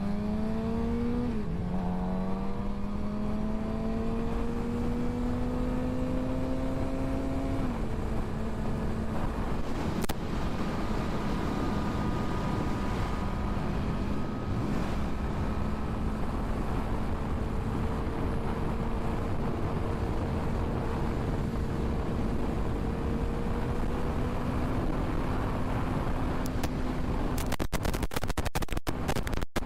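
Sportbike engine accelerating, with its pitch rising through the gears and dropping at two upshifts, about a second and a half in and again about eight seconds in. It then runs steadily at highway speed under heavy wind rush. Near the end the sound breaks up into short choppy fragments.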